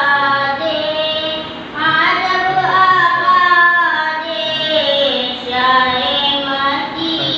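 A young boy singing a naat, an unaccompanied Islamic devotional poem in praise of the Prophet, in long, ornamented held phrases with a short break for breath about two seconds in.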